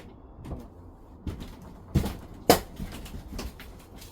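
A series of sharp wooden knocks and clunks from firewood being handled and worked, the loudest about two and a half seconds in.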